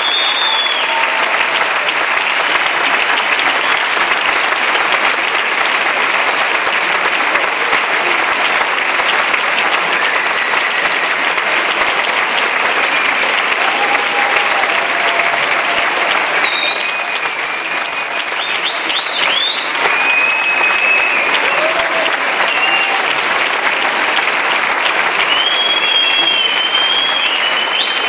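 Theatre audience applauding steadily and at length after the band leaves the stage, calling for an encore, with a few high whistles cutting through, mostly in the second half.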